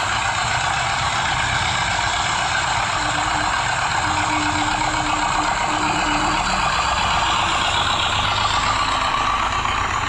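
The small diesel engine of a miniature concrete mixer model running steadily.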